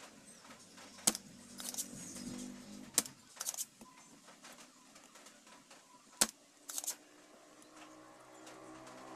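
Three sharp metallic clicks from hand tools working on an electronics circuit board during desoldering of chips. Each click is followed about half a second later by a brief rattle, over a faint steady hum.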